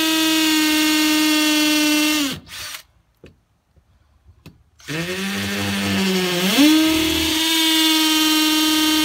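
Small hammer drill with a 3/16-inch bit drilling holes through hardcoat stucco: a steady high whine that stops about two and a half seconds in, then starts again about two seconds later, slower at first and rising in pitch to full speed for the second hole.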